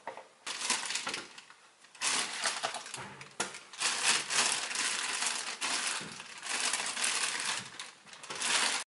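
A thin plastic bag crinkling and rustling in long uneven bursts as it is handled and potatoes are taken out of it; the sound cuts off suddenly at the end.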